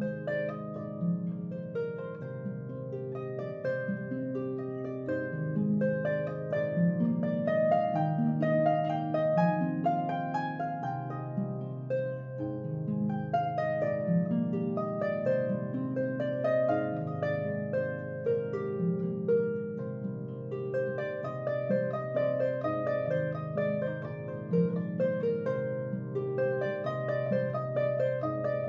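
Background harp music: plucked notes, a lower line moving about once a second under a melody.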